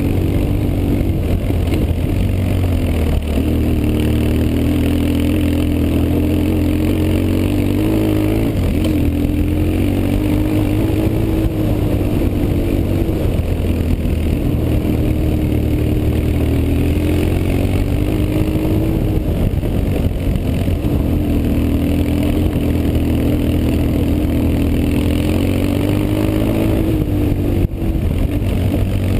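BMW R 1150 GS air/oil-cooled boxer twin engine running while the bike is ridden, the engine note rising and falling repeatedly as the throttle is opened and closed.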